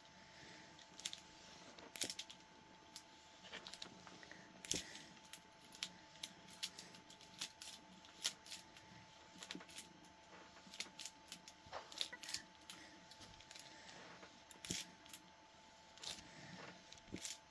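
Faint, irregular light clicks and clinks from an articulated metal hand brace as it strokes a cat's fur, over a faint steady hum.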